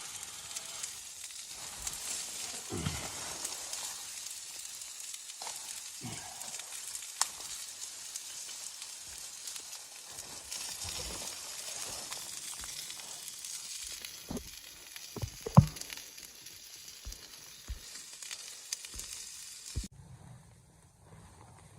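Food sizzling as it fries, a steady hiss with scattered clicks and knocks. One sharp knock stands out about three-quarters of the way through. The sizzle cuts off suddenly near the end.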